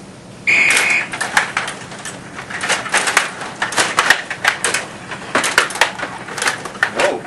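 Stiga table hockey game in play: irregular sharp clacks and rattles of the puck and the rod-driven players striking it and the table. A short high beep sounds about half a second in.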